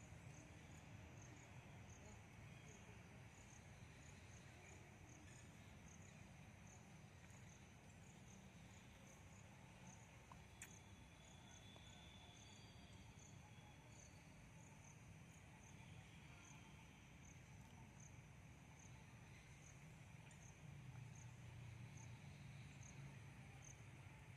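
Near silence with an insect, cricket-like, chirping faintly and steadily: a short high-pitched pulse about once a second, over a low background rumble.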